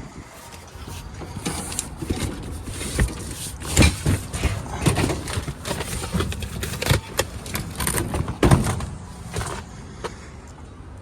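Footsteps and handling noise: irregular knocks, scuffs and rustling, with the loudest knocks about four and eight and a half seconds in.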